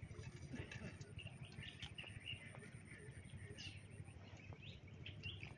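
Faint outdoor background: a low, even rumble with scattered short bird chirps and a few small clicks.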